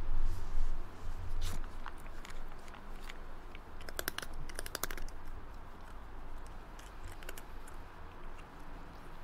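A cat chewing and crunching dry treats, with a quick run of crunches about four seconds in.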